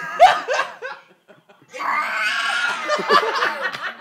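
Laughter: a few short laughs in the first second, then a longer stretch of laughing from about two seconds in.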